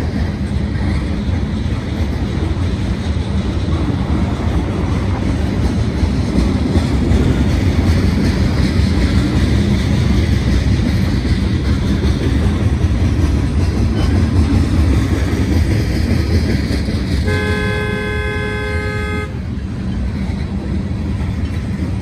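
CSX mixed freight train rolling steadily past a grade crossing. About seventeen seconds in, a car horn sounds one long blast of about two seconds: a driver waiting at the crossing honking in impatience at the train.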